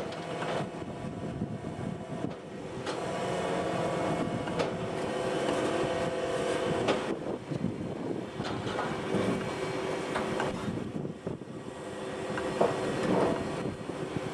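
Log step feeder and roller conveyor of a firewood handling line running: a steady mechanical hum and rattle, with a knock every second or two as logs tumble up the steps and drop onto the rollers.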